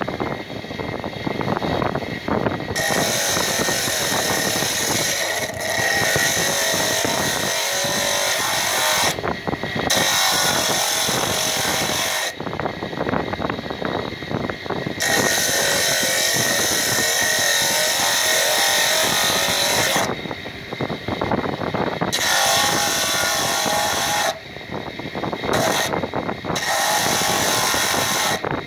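A block of rock salt being ground against a spinning disc on a motor-driven shaft: a loud rasping grind. The rasp breaks off briefly several times while the machine keeps running underneath.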